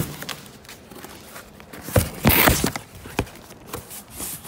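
Large cardboard shipping box being handled and pulled open by hand: scattered taps and knocks, a thump about two seconds in, then a loud rough noise lasting about half a second.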